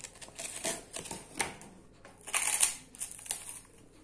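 Puffed rice cake being bitten and chewed: a series of dry, crackly crunches, the loudest about two and a half seconds in.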